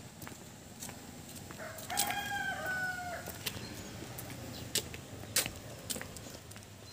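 A rooster crows once, a pitched call of about a second and a half beginning about two seconds in. Footsteps on a paved road tap lightly throughout.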